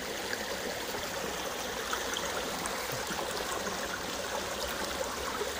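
Shallow river water flowing and splashing out of concrete culvert pipes, a steady rushing sound.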